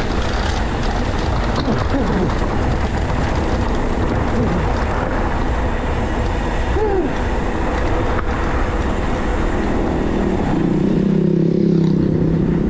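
Mountain bike rolling over a rough macadam stone track: a steady rumble and rattle of tyres and frame, with wind on the microphone. A steady low hum joins about ten seconds in and is the loudest part.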